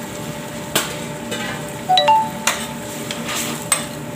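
Metal spoon stirring in a steel frying pan of sauce, knocking and scraping against the pan in a series of sharp clinks, one of them ringing briefly about two seconds in.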